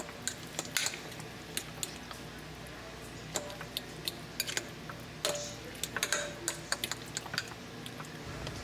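Irregular light clicks and clinks of kitchen utensils against a bowl, busiest about five to six seconds in.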